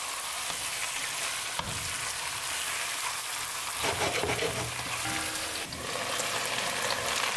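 Chicken leg quarters and onions sizzling in oil in a pot as they brown, turned over with a spatula, with a couple of short knocks.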